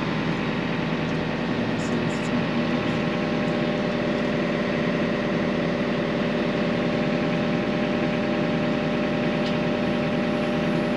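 Yanmar ViO55 mini excavator's diesel engine running steadily at a constant idle-like speed.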